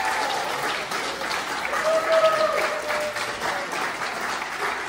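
Audience applauding, a dense steady patter of clapping, with a single voice calling out briefly about two seconds in.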